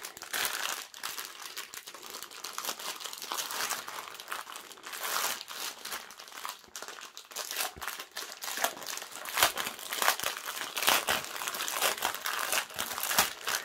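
Plastic crinkling and crackling as a strip of small plastic bags of acrylic diamond-painting drills is handled. The crackle goes in irregular bursts and is busier in the second half.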